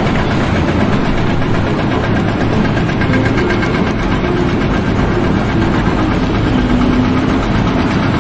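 A loud engine running steadily, with a fast, even pulsing.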